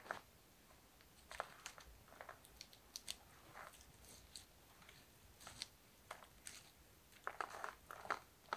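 Faint rustling and scattered small clicks as a backpack's fabric and straps are handled, with a denser run of crinkling and clicks near the end.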